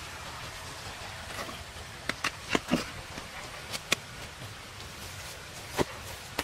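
A large stone being shifted and pressed down by hand on dirt and rock: a few sharp knocks and scrapes of stone, clustered around the middle with one more near the end, over a steady outdoor hiss.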